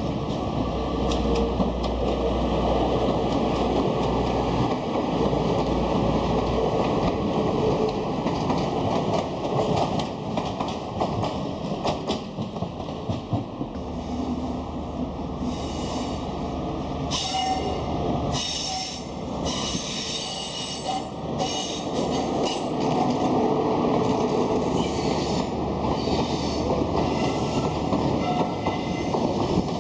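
A train running slowly past, a steady rumbling of wheels on track. In the second half it gives a string of short, high-pitched metallic squeals.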